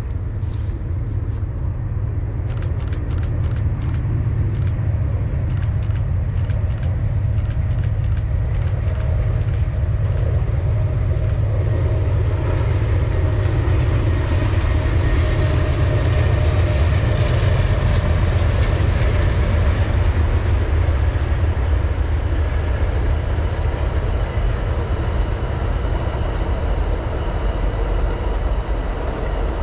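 An Amtrak Auto Train's GE diesel locomotives and cars crossing a trestle bridge: a deep, steady engine drone under wheel-on-rail noise. The noise swells to its loudest about halfway through as the locomotives pass, then eases. A run of sharp clicks comes in the first ten seconds.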